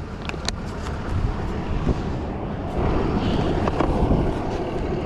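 Highway traffic rushing past on the turnpike, a steady roar that swells around the middle, with wind on the microphone.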